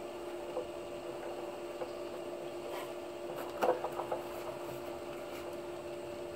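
A steady electrical hum, with a short run of knocks about three and a half seconds in: footsteps in slide sandals stepping down off a wooden deck.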